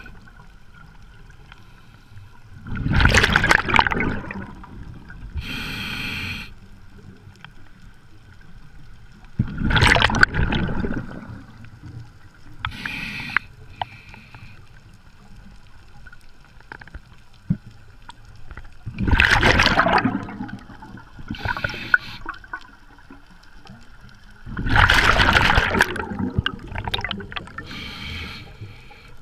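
Scuba diver breathing through a regulator underwater: four breaths, each a loud rush of exhaled bubbles lasting one to two seconds, followed about two seconds later by a shorter, quieter hiss from the regulator.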